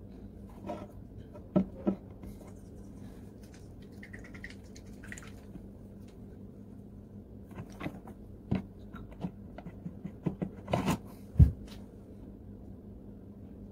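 Handling noises at a work table while painting a sneaker: scattered light clicks and taps of a paintbrush and paint bottles, growing busier after about eight seconds. The loudest is a dull knock about eleven seconds in, as a small glass paint bottle is set down on the table. A faint steady hum lies underneath.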